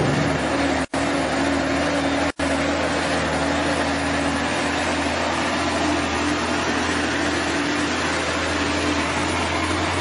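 Sinotruk Howo 6x4 dump truck's diesel engine running steadily as the loaded truck drives by, a constant drone. The sound cuts out briefly twice, about one second and two and a half seconds in.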